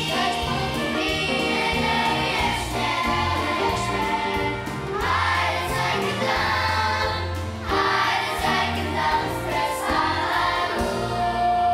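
Children's choir singing a Romanian Christian song in unison, with instrumental accompaniment that includes steady bass notes.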